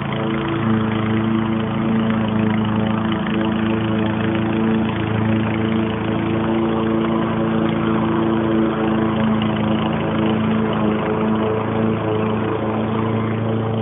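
A small motor running at a steady speed, giving an even, pitched hum.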